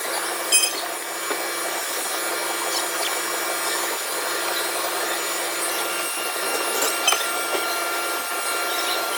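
Steady mechanical noise of a machine running, like a power tool, with a few faint clicks and short squeaks.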